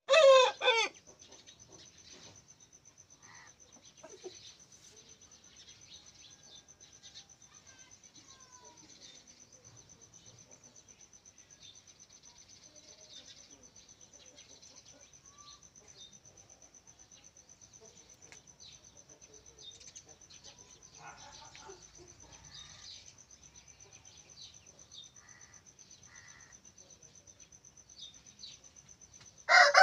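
Aseel rooster crowing: the tail of a crow in the first second and the start of another right at the end, the loudest sounds here. Between them a steady high insect trill with faint scattered bird chirps.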